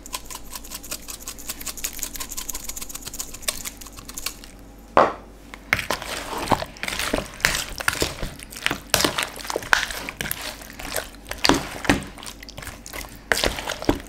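Pepper mill grinding black pepper, an even run of clicks about five a second, stopping after about four and a half seconds. Then a single loud knock, followed by irregular squelching and slapping as raw chicken pieces are mixed by hand in a wet marinade.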